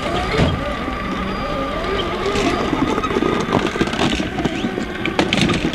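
Electric motor and geared drivetrain of an RC scale rock crawler whining as it climbs over rock, the pitch rising and falling with the throttle. A few sharp clicks from the tyres and chassis on the stone come near the end.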